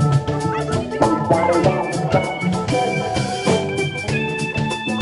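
Live band playing a New Orleans funk groove: drum kit beating a steady rhythm under electric guitar, bass and electric keyboard, with held keyboard and guitar notes.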